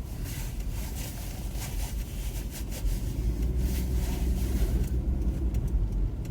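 Car cabin noise: a steady low engine and road rumble, with scattered light ticks and swishes in the first half and a steady hum that comes in about halfway through.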